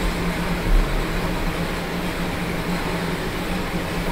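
Electric fan running with a steady whoosh and a constant low hum, mixed with the low rumble of a stationary exercise bike being pedalled.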